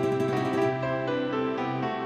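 Electronic keyboard with guitar playing the instrumental introduction of a song: held chords with a melody moving over them, no singing yet.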